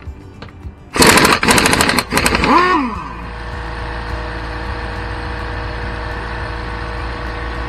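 Pneumatic impact wrench hammering for about two seconds as it breaks loose a car wheel's lug nut, ending in a short rising-and-falling whine. A steady hum follows, the 1 hp oil-free air compressor's motor running.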